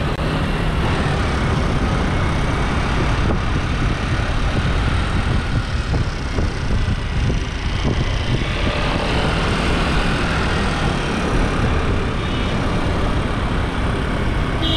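Wind rushing over the microphone of a moving scooter, with the scooter's engine running underneath at a steady cruise.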